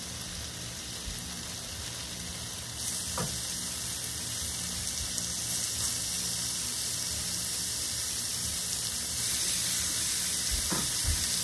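Raw beef slices sizzling as they are laid on a hot ridged grill pan for carne asada, the sizzle growing louder in steps about three seconds in and again near the end.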